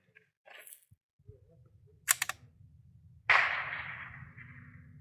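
Rimfire rifle firing a single shot about three seconds in, its report trailing off over more than a second. A quick run of sharp clicks comes a second before the shot.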